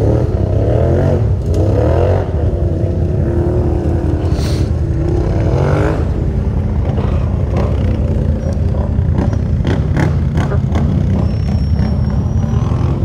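ATV engines: one idles in a steady low drone while another revs up and down several times in the first half. A run of sharp knocks comes about two-thirds of the way in.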